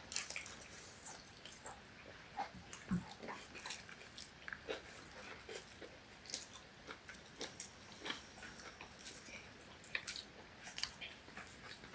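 Faint, irregular clicks and crunches of food being chewed.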